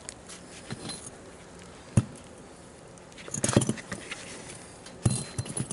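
Metal parts being handled on a concrete floor: a single sharp knock about two seconds in, then two short bursts of clinking and scraping.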